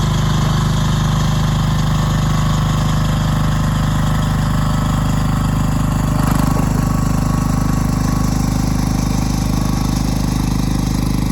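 Rhinoceros XN08 mini excavator's small diesel engine idling steadily, with a brief rise in level about six seconds in.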